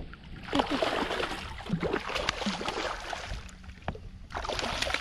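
Water splashing and sloshing beside a kayak as a hooked catfish is netted, in two spells with a short lull between, with scattered sharp splashes.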